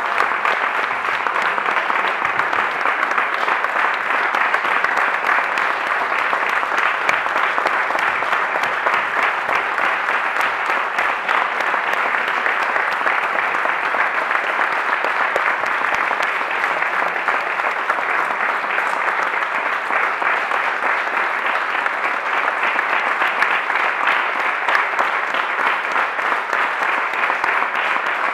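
Audience applause in a concert hall: many people clapping, steady and sustained without a break.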